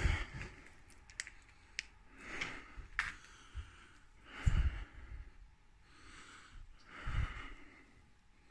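A person breathing close to the microphone, one breath about every two and a half seconds, the breath just past the middle the loudest. A few sharp little clicks fall between the first breaths.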